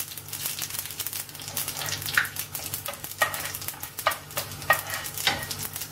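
Urad dal and mustard seeds frying in hot coconut oil for a South Indian tempering: a steady sizzle and crackle, with a metal spoon stirring and clinking against the pan about five times.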